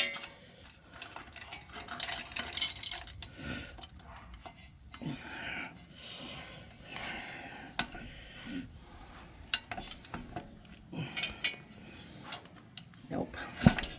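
Irregular metallic clinks and scrapes as the e-bike's wheel axle is worked against the frame dropouts, with the axle flats not yet lining up so the wheel does not seat.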